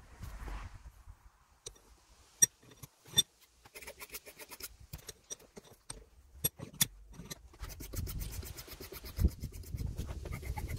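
Metal tools handled at a steel bench vise: sharp metallic clinks, two loud ones a little under a second apart, then runs of quick, even scraping ticks, densest near the end.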